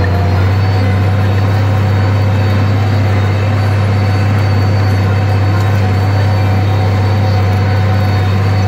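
International 956 XL tractor's six-cylinder diesel engine running steadily under load while pulling a disc harrow, a constant low drone.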